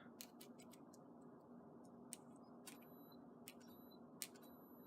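Faint, scattered light clicks and ticks as small lock parts, wires and the battery are handled, over a faint steady hum.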